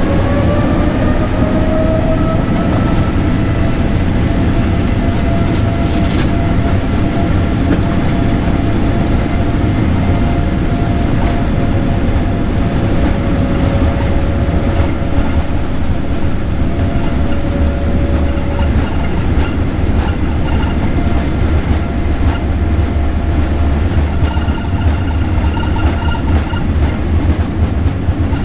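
Jet airliner takeoff heard from inside the cabin: the engine whine rises in pitch in the first couple of seconds as thrust comes up, then holds steady over a loud low rumble of the takeoff roll.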